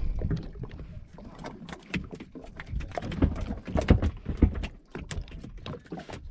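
Irregular knocks and slaps against a small wooden fishing boat's hull, as of water lapping at the side, the sharpest a little under four seconds in.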